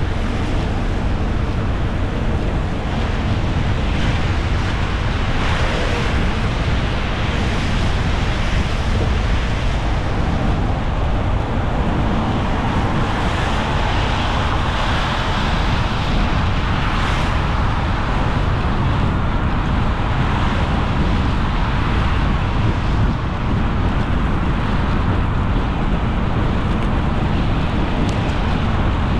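Car driving on a rain-soaked road: steady low road rumble with the hiss of tyres on the wet surface, the hiss swelling for a few seconds midway as another car passes alongside.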